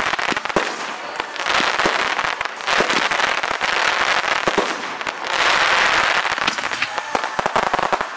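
Fireworks display going off: irregular bangs and pops from shells bursting, with crackling noise between them.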